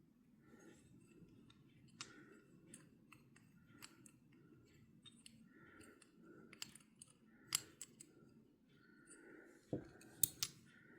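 Faint, scattered clicks and light metallic taps of small fishing-reel parts being handled and fitted back into an Abumatic 150 reel, the sharpest clicks coming close together near the end.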